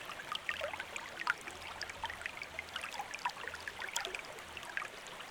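Shallow stream running and trickling, with many small bubbling splashes.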